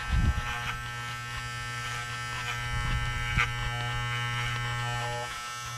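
Corded electric dog-grooming clippers running with a steady buzz, trimming the fur on the underside of a dog's paw. A low bump sounds just after the start, and the buzz dips briefly near the end.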